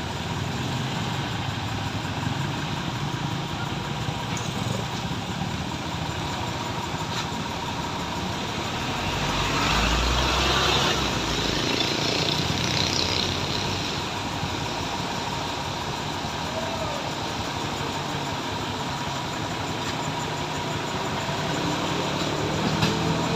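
Tow truck engine running steadily at idle, with a louder rush and deep rumble for a few seconds about ten seconds in.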